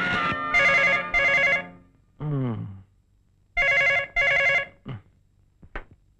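Landline telephone bell ringing in the double-ring pattern, ring-ring, pause, ring-ring, twice. Between the two pairs there is a short falling sound, and there are a couple of brief clicks near the end.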